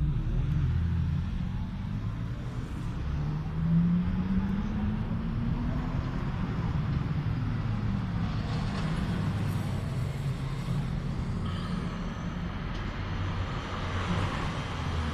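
Road traffic: a steady low drone of passing motor vehicles, with one engine rising in pitch a few seconds in and a louder vehicle swelling past in the second half.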